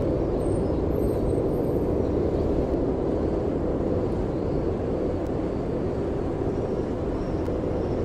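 Steady low rumbling background noise that holds level throughout, with a few faint thin high tones in the first two seconds.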